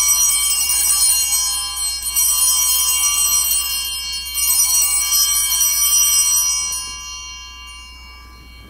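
Altar bells rung at the elevation of the chalice, struck again in fresh rounds about every two seconds, each a high shimmering ring that dies away near the end.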